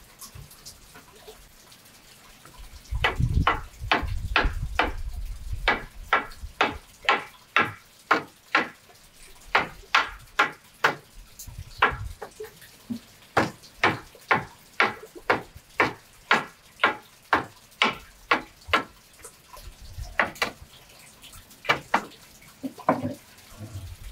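Hammer blows on wood, about two or three a second, in runs with short pauses and a few scattered strikes near the end.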